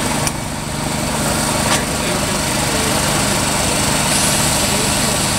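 Small engine running at a steady speed, with a high hiss over it and a couple of sharp clicks in the first two seconds.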